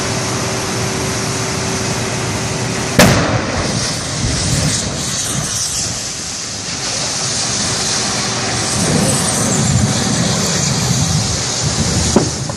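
Gas cylinders exploding in a burning wreck: one loud sharp blast about three seconds in and a smaller bang near the end, over steady background noise.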